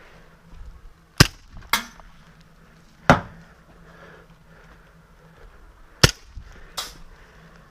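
Airsoft gun firing five single shots, each a sharp crack: two in quick succession about a second in, one a little after three seconds, and a quick pair near the end.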